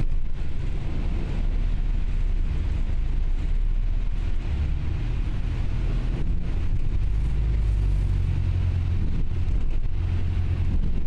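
Steady low rumble of a motor vehicle running, heard throughout with no sudden events.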